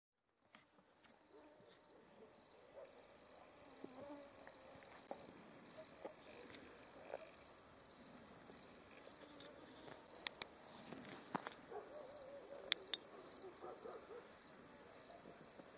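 Crickets chirping at night: a steady high-pitched trill that pulses evenly, over faint low background noise. A few sharp clicks stand out a little past the middle.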